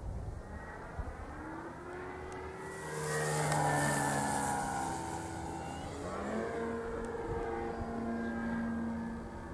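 Radio-controlled P-47 Thunderbolt scale model making a low pass, its motor and propeller drone building to a peak about three to four seconds in, then dropping in pitch as it goes by and climbs away.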